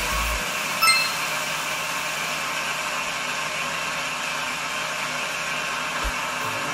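Countertop blender running steadily as it blends a liquid peanut punch mix. A brief bright, ringing clink sounds about a second in.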